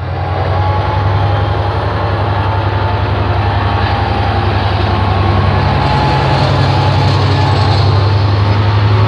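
Henschel diesel locomotive passing close by. Its engine runs with a loud, steady low drone and a fast, even throb.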